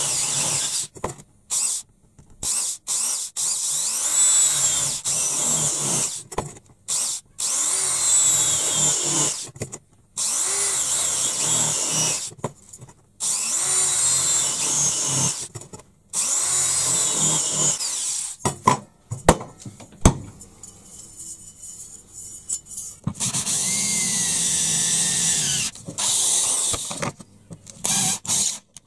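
Electric drill boring holes through the thin sheet steel of an oil filter can, running in repeated bursts of a few seconds that stop and start, with a high whine that wavers as the bit cuts. A few sharp clicks come a little past the middle, followed by a short quieter stretch.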